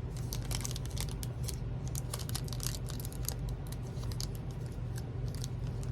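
Foil trading-card pack wrapper crinkling and clicking in the fingers as a tight seal is picked at, in many small irregular ticks, over a steady low hum.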